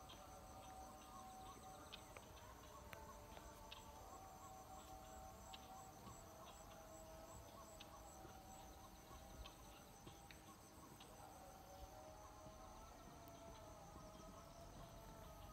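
Faint evening insect chorus over rice paddies: a steady high-pitched trill and a pulsing high chirp that fades out about eleven seconds in, with fainter, lower wavering tones underneath.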